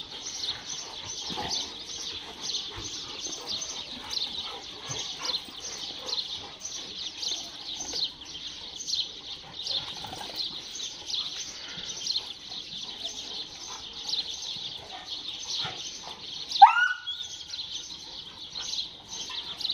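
Many small birds chirping in a dense, rapid, continuous chatter. Near the end comes a single loud cry that rises in pitch.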